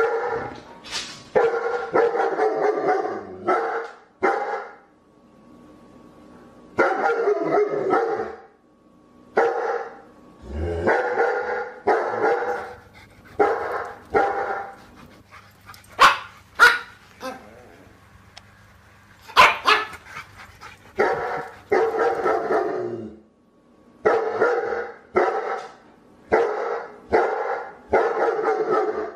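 A dog barking in repeated bouts of quick barks, with pauses of a second or two between them and a few sharper, higher barks near the middle.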